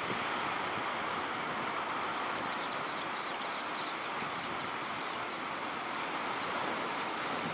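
Steady wash of breaking ocean surf, an even hiss of waves.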